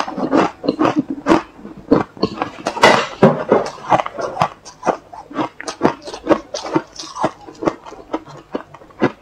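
Close-miked crunching and chewing of freezer frost in the mouth: a quick, irregular run of crisp crunches, several a second, louder in the first three seconds and softer after.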